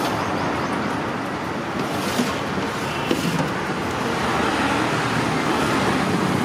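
Steady road traffic noise, a continuous rush of passing vehicles.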